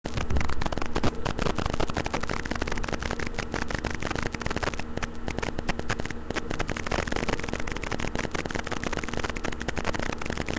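Dense crackling static from a webcam microphone, with rapid irregular clicks over a faint steady hum.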